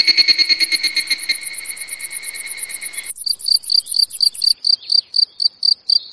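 Insects chirping: a fast, continuous trill that cuts off about three seconds in, followed by evenly spaced high chirps, about three a second.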